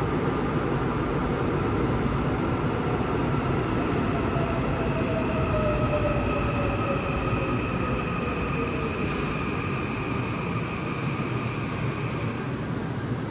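Seoul Subway Line 4 electric train pulling into the station behind platform screen doors and slowing: steady running noise with high whining tones, one of them falling in pitch as the train slows. The whine dies away near the end as the train draws to a stop.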